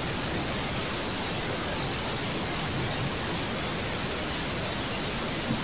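Steady, even background hiss with nothing standing out above it.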